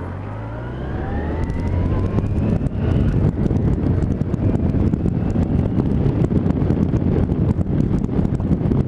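Yamaha FJR1300 motorcycle's inline-four accelerating, its engine note rising over the first few seconds. Wind then buffets the helmet-mounted mic as speed builds, a loud rumbling flutter that covers most of the engine sound.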